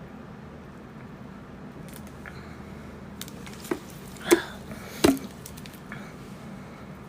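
Two short, abrupt burps about a second apart, the second louder and low, just after a faint click, over a steady low hum.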